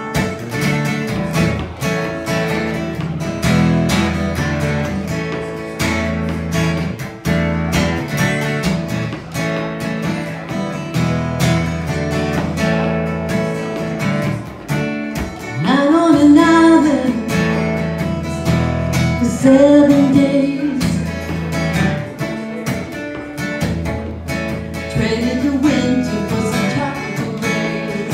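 Acoustic guitar strummed in a steady rhythm while a woman sings over it. Her voice is loudest in two sung lines about halfway through.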